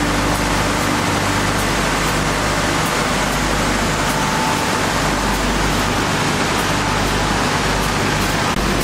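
Sanding machine running while sanding a wood core board: a steady, loud rushing noise with a low hum underneath.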